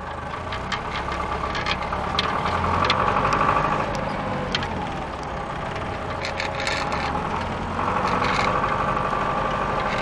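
Tractor engine running as it drives along a road, heard from the driver's seat. It grows louder about two seconds in, eases off around the middle, and picks up again near the end, with scattered short rattles and clicks.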